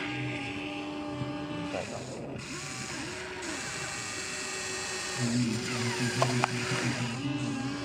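Small electric gear motors of a toy remote-control excavator whirring as it works, starting and stopping again and again with the pitch rising and falling. A few clicks come about six seconds in.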